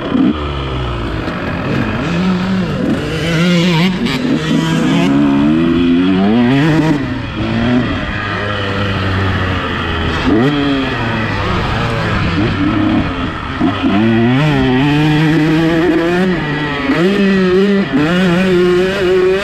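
Two-stroke motocross bike's engine revving hard and easing off again and again, its pitch climbing and dropping with each throttle opening and gear change.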